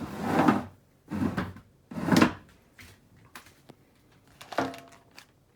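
Kitchen handling noises as a dish of beef is set into a steam oven: three short scraping rushes in the first couple of seconds, a few light knocks, and one more rush near the end.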